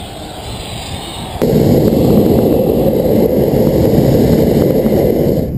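Hot-air balloon's propane burner firing: a loud, steady rushing blast starts suddenly about a second and a half in, holds for about four seconds, and cuts off near the end.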